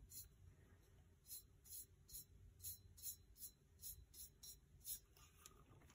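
Faint, rhythmic swishing of a paintbrush stroked back and forth over a tumbler, blending out wet ink, about two strokes a second.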